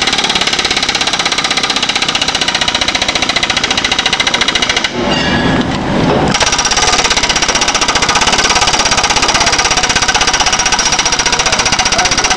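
Pneumatic air hammer firing a rapid, steady stream of blows against a sheet-metal strip, a loud metallic rattle. It stops for about a second about five seconds in, then starts again.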